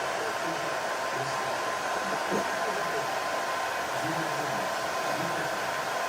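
Steady rushing noise of a small motor-driven air blower such as a hair dryer, with a constant thin whine, running without change.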